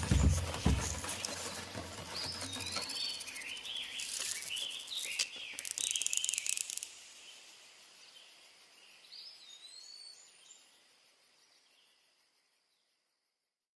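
Birds chirping and calling, short curving notes over a faint high hiss, fading out to silence near the end.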